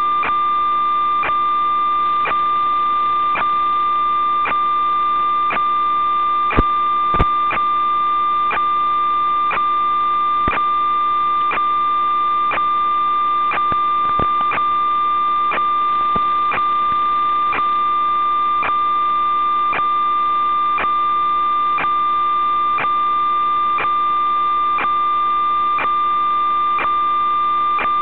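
Steady electronic whine with a faint click about once a second, the noise of an analog FPV video link's audio channel, and two sharper clicks about seven seconds in. It does not change when the quad's motors stop, so it is not motor sound.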